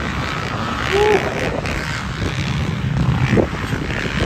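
Several motocross dirt bikes running on the track, their engines revving up and down. There is a brief rising rev a little past three seconds in.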